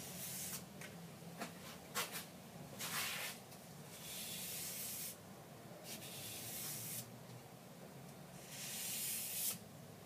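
Knife blade drawn across sandpaper on a rubber backing in light sharpening strokes: a series of dry, hissing scrapes, a few short ones first, then several longer strokes of about a second each.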